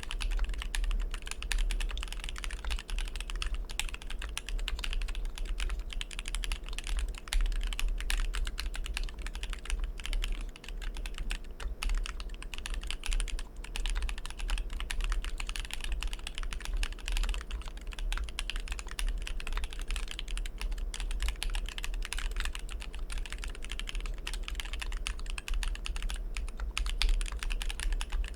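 Continuous fast typing on an ai03 Polaris custom mechanical keyboard with a brass plate, SP-Star Polaris White switches and GMK Oblivion keycaps: a dense, unbroken stream of key clacks, with a steady low hum underneath.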